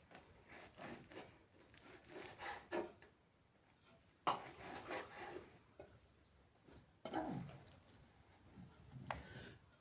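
Irregular rubbing and scraping with a few short knocks, the sharpest about four seconds in.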